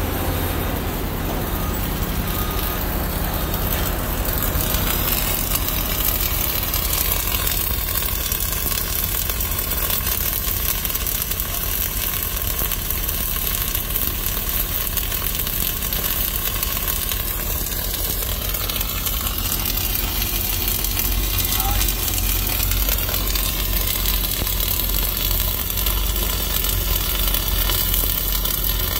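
Self-shielded flux-core welding arc (Lincoln NR305 5/64 in wire) crackling steadily without a break as a weld bead is run.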